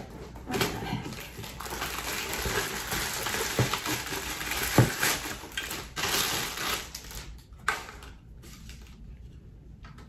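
Plastic packaging bags crinkling and rustling as vacuum parts wrapped in them are handled and unwrapped, with a few light knocks. The rustling dies down near the end.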